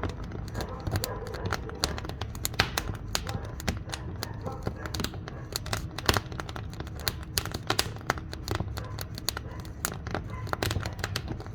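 Wood fire burning in a wood-fired cook stove, crackling with many irregular sharp pops over a low steady rumble.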